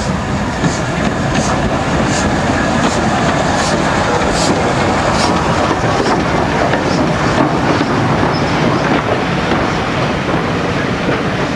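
Somerset & Dorset 7F 2-8-0 steam locomotive and its coaches running slowly into the platform: a steady rumble with a regular click of wheels over rail joints about every three-quarters of a second, fading out about two-thirds of the way through.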